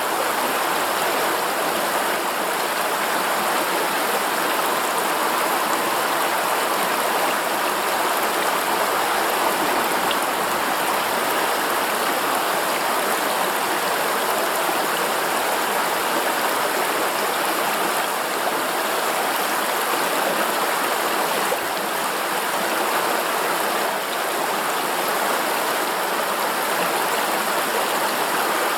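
A river running steadily over rocks: a continuous rushing of flowing water.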